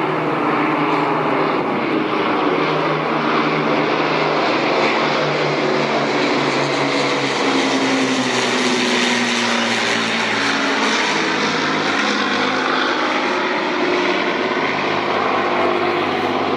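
Propeller-driven Second World War aircraft, a Lancaster bomber with Spitfire and Hurricane fighters, flying over: a steady drone of several piston engines at slightly different pitches, sharpest around the middle.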